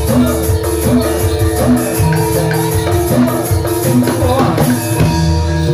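Jathilan (kuda lumping) accompaniment music: an ensemble of drums and percussion with held and struck pitched notes, playing continuously.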